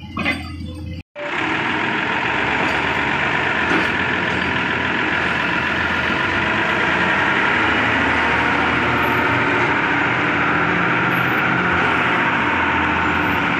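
Mercedes-Benz 911 truck's diesel engine running steadily. It cuts in suddenly about a second in.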